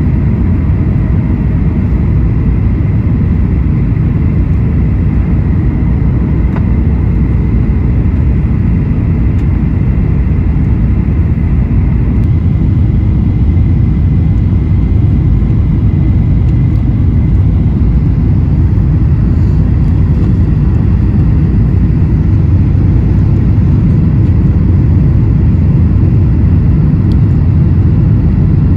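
Steady low rumble of a Boeing 737-900ER's CFM56 engines and the airflow, heard inside the cabin at a window seat over the wing, on approach with the flaps extended. A faint high whine rides on top and fades about halfway through.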